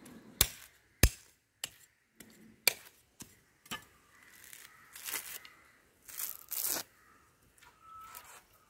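A coconut being husked by hand: a curved chopping knife strikes the fibrous husk about five times, sharply, then the coir fibres are torn off in a few rasping rips.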